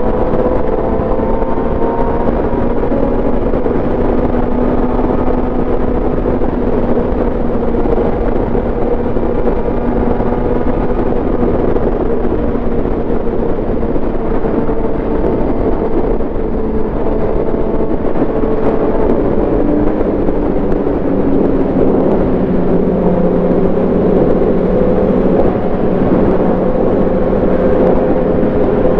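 Suzuki GSX-R750 sport bike's inline-four engine running at a steady highway cruise, heard from the bike itself with wind rushing past; the engine note settles a little lower about two-thirds of the way through.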